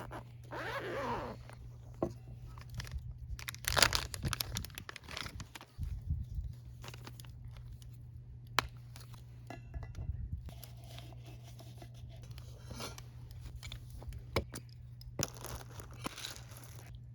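Meal-time handling sounds: scattered clicks, scrapes and crinkling of tableware and packaging, with a steady low hum underneath.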